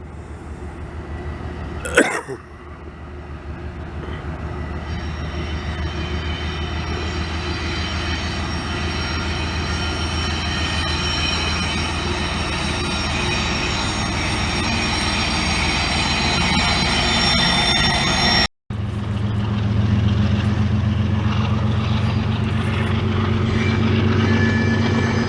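A train passing on nearby tracks: a continuous rumble that grows louder over several seconds, with high steady ringing tones from wheels on rail. After a brief break about two-thirds in, a lower, steadier hum takes over. A single sharp knock comes about two seconds in.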